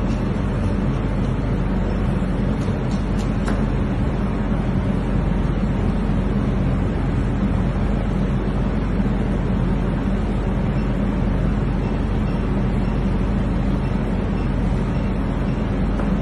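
A loud, steady machine hum and rumble with a low drone, unchanging throughout.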